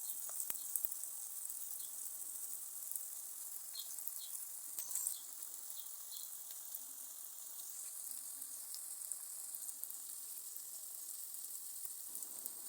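Chopped onions and garlic sizzling steadily in cooking oil in a frying pan, with small scattered crackles.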